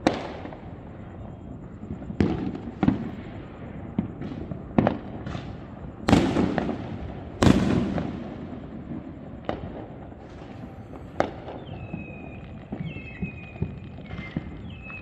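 Fireworks shells bursting at a distance, about ten booms, each followed by a rumble that dies away. The two loudest come about six and seven and a half seconds in. Near the end a run of short high-pitched tones repeats.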